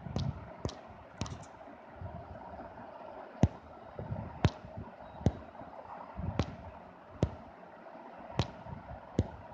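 About ten sharp single clicks at irregular intervals, roughly one a second, from typing text on a smartphone's on-screen keyboard, over a faint steady hum.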